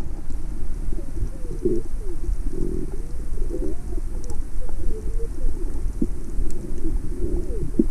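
Muffled underwater sound heard through a submerged camera: a low, steady rumble of moving water with short wavering, warbling tones that come and go throughout.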